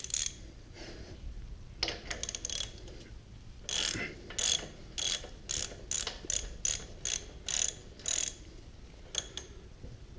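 Ratchet wrench clicking in short back-and-forth strokes while loosening a bolt, with a fast run of about two strokes a second in the middle.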